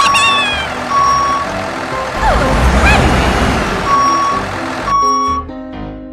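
Reversing-alarm beeps, about one a second, over light background music. In the middle the beeps pause while a low rumble and a falling swoosh come in.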